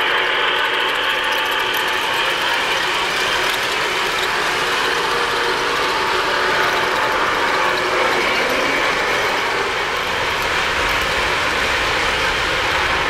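3-rail O-scale model trains running: a steady mechanical clatter of metal wheels on the track and geared motors as a steam locomotive hauls a string of coal hopper cars past. A little more low rumble comes in near the end.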